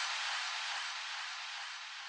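A steady hiss with no pitch, fading out.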